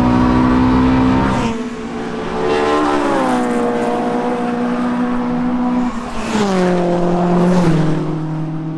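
Race car engines going past on the circuit one after another, each engine note dropping in pitch as it passes, with short rushes of air and tyre noise as they go by.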